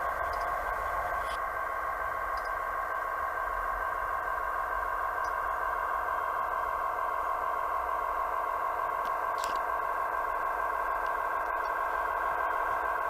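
Sound decoder (ESU LokSound 4.0) in a Kato HO-scale SD80MAC model locomotive playing its diesel engine sound through the model's small speaker: a steady electronic hum of several fixed pitches that comes in suddenly as the locomotive reaches the camera.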